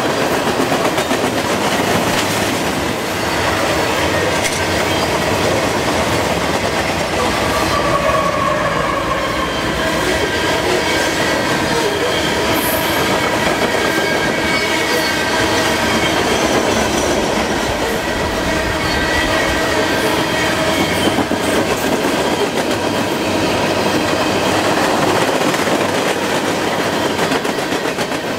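Freight cars of a long mixed freight train rolling past close by at about 39 mph: tank cars, hoppers and boxcars. A steady rumble and clatter of steel wheels on the rails, with thin steady high tones running through it.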